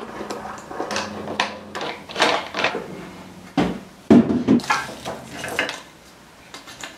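Workshop handling sounds: a string of knocks, clicks and clatters as tools and motorcycle parts are picked up, set down and worked on, with a few louder knocks about halfway through.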